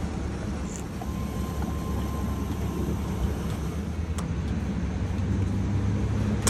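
Gasoline pump nozzle running, fuel rushing into the truck's tank as a steady low rumble that slowly grows louder, with a sharp click about four seconds in.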